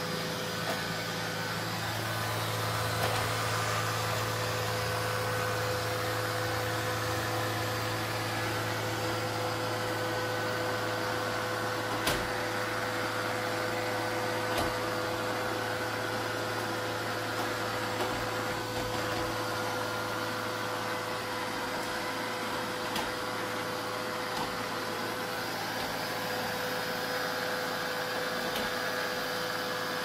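Neato Botvac D7 Connected robot vacuum running on a hard floor: a steady motor and brush hum with a constant whine, broken by a few faint clicks.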